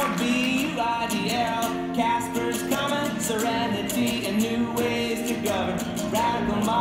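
A man and a small group of backup singers singing a pop-style chorus live, with a guitar accompanying them.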